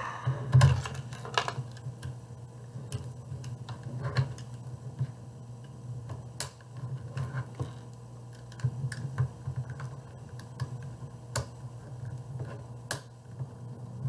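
Irregular small plastic clicks and taps as colored tiles are pressed onto a kit-built Rubik's cube and the cube is handled, over a steady low hum.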